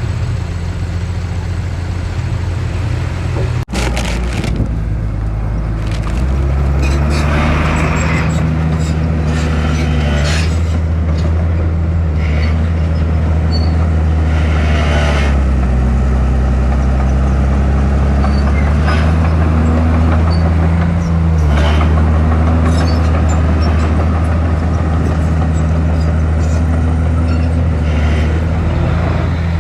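Diesel engine of heavy earthmoving machinery running steadily under load, with scattered clanks and scrapes of stone. A brief cut about four seconds in, after which the engine is louder.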